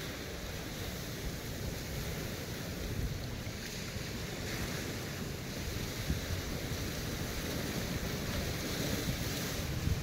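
Wind buffeting the microphone in a low rumble, over ocean surf washing against a rocky shoreline that swells up a couple of times.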